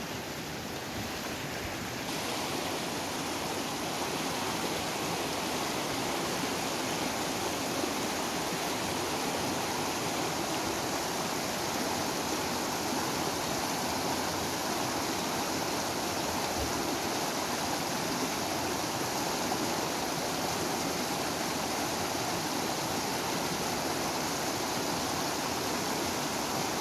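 Fast mountain river rushing over rocks: a steady wash of whitewater, a little louder from about two seconds in.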